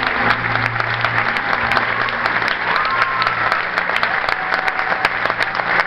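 Audience applauding with dense, steady clapping, while the last low notes of the dance music fade out in the first few seconds.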